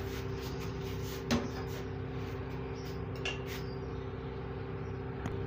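A steady low hum runs throughout, with a light knock about a second in and a couple of faint clicks as a metal kadhai is lifted off the gas stove.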